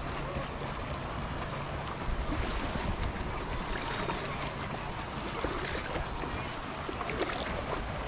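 Wind buffeting the microphone over lapping sea water, a steady rushing noise, with a few faint distant voices.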